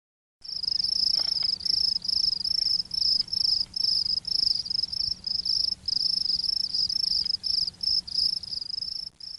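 Insect chirping: a high, trilled chirp repeated about three times a second, starting about half a second in.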